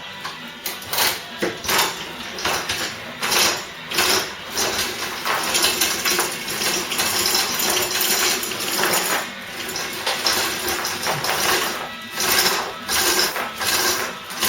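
Irregular rattling, clicking and scraping of hands-on work on the car, with rock radio faintly in the background.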